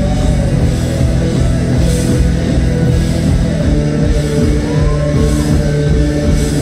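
Rock band playing live: electric guitars and a drum kit in a loud instrumental passage with no singing.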